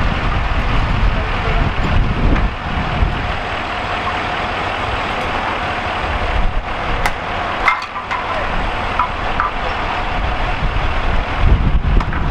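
Fire truck's diesel engine idling steadily at the curb amid street traffic noise, with a few short sharp clicks about seven seconds in.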